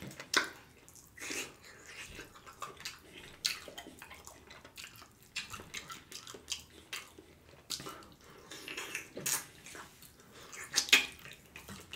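Close-miked eating sounds: a person biting and chewing meat off braised oxtail pieces, with irregular wet mouth smacks and clicks.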